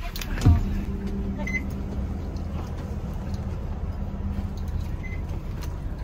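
Coach bus engine idling with a steady low hum, heard from inside the bus. A brief thump comes about half a second in, and two faint short beeps sound about 1.5 s and 5 s in.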